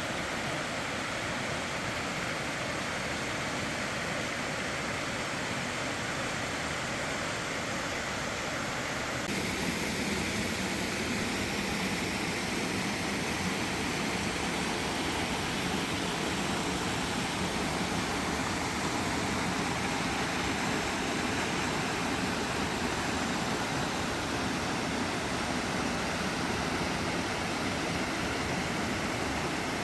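Mountain valley stream rushing steadily. About nine seconds in, it changes abruptly to a louder, fuller rush.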